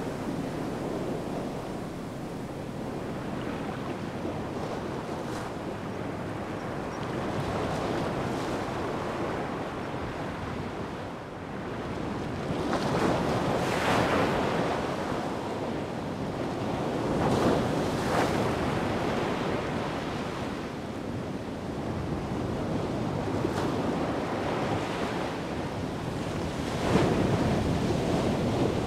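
Ocean surf: waves rushing in and breaking, the wash rising and falling with each wave and loudest about halfway through and near the end. Wind blows across the microphone.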